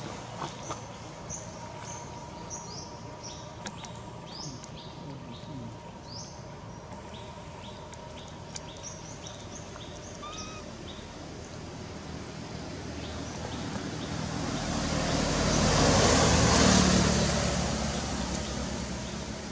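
A vehicle passing on the road, swelling to its loudest about sixteen seconds in and then fading. Short high chirps repeat through the first half.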